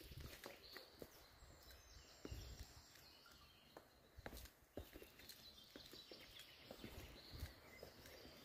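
Faint footsteps of a person walking down concrete steps, soft irregular knocks about twice a second.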